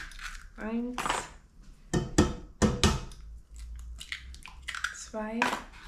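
Eggs being tapped against a stainless steel pot and cracked open by hand: a cluster of about four sharp knocks about two seconds in.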